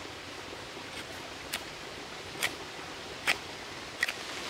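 Knife shaving the tip of a wet balsam fir bow-drill spindle: four sharp scraping strokes, a little under a second apart, over a steady hiss of water.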